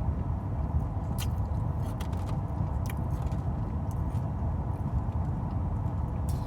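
Steady low rumble of an idling car heard from inside the cabin, with a few light clicks scattered through it.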